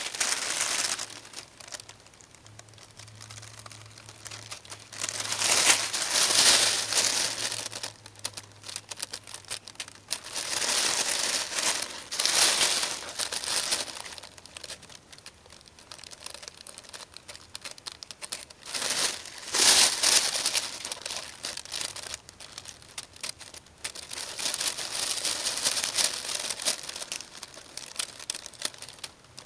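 Thin printed sewing-pattern paper crinkling and rustling in irregular spells as it is handled and cut out with scissors.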